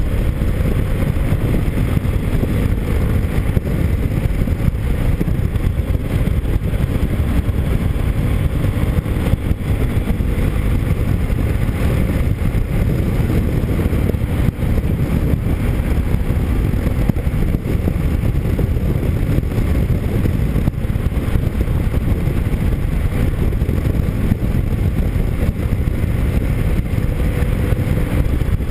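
Motorcycle riding at a steady speed: wind rushing over the camera's microphone, with the engine running evenly underneath.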